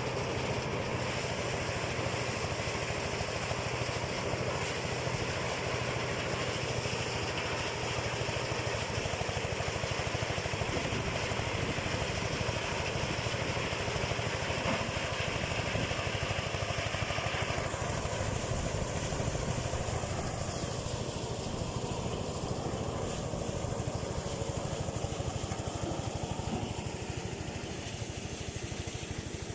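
Rice thresher machine and its small engine running steadily. The higher rushing part of the sound drops away about two-thirds of the way through, leaving the engine hum.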